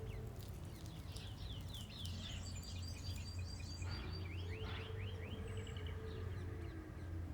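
Small birds chirping: quick runs of short falling chirps and a rapid trill in the middle, over a steady low hum.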